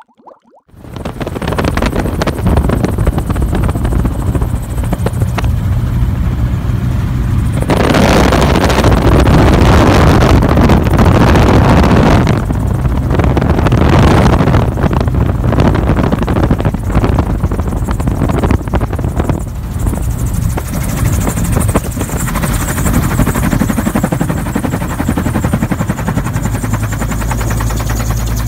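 Autogyro engine and propeller running steadily, heard from the open cockpit with wind rushing past. The sound cuts in sharply at the start and is loudest for a stretch about a third of the way through.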